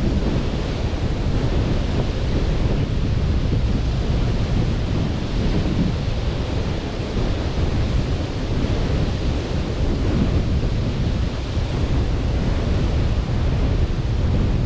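Sea surf washing onto a beach in a steady rush, with wind rumbling on the microphone.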